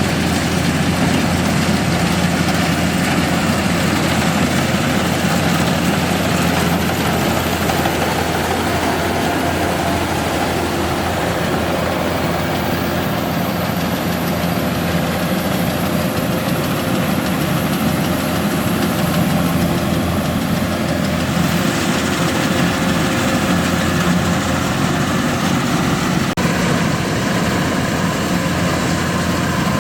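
Kubota DC-105X combine harvester's diesel engine running steadily under load, a continuous low hum with machinery noise over it.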